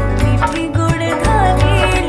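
Background music: an Indian pop song with a heavy bass beat and a sung melody.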